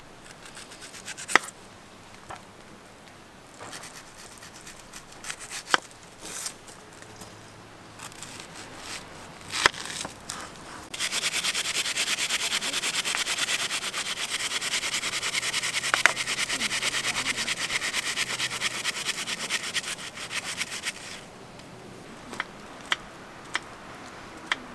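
A serrated knife cutting an onion, with scattered knocks of the blade on a wooden cutting board. About eleven seconds in, a fast, even rasping of food being grated on a plastic hand grater takes over for about ten seconds and is the loudest sound, followed by a few more light knocks.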